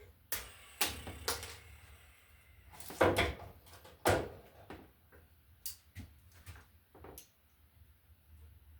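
Scattered clicks, knocks and light scrapes of hand work on a wall receptacle and its wires, with the two loudest knocks about three and four seconds in.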